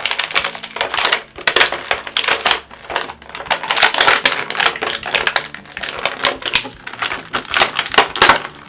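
Plastic action-figure packaging being handled: the moulded plastic tray and wrapping crinkle and crackle in rapid, irregular clicks.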